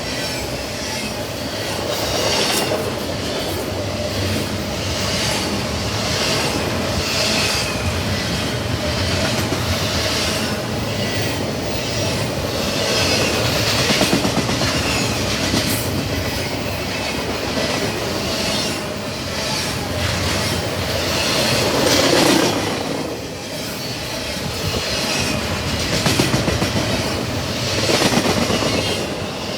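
Freight train cars rolling past: steady rumble of the wheels, regular clickety-clack as they cross rail joints, and a wavering high squeal from the wheels on the rails.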